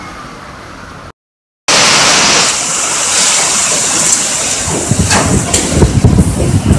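Hurricane wind and driving rain as a loud, steady rush that starts suddenly after a brief gap, with gusts buffeting the microphone from about five seconds in.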